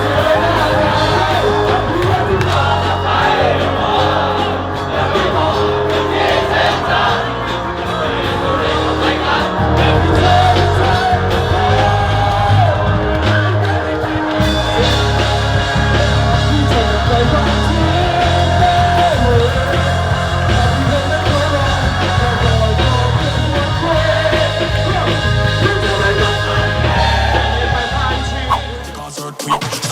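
Band music with a singing voice and occasional crowd shouts; the music breaks off briefly near the end.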